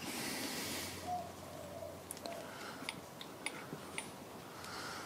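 A few faint ticks and creaks from a steel ring spanner and draw bolt under heavy load, straining to pull a #3 Morse taper arbor out of a tight taper socket. A short soft hiss comes at the start.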